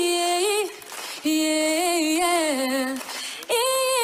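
A woman singing unaccompanied, holding long notes whose pitch wavers and bends between phrases, with two short breaks between phrases, about a second in and about three seconds in.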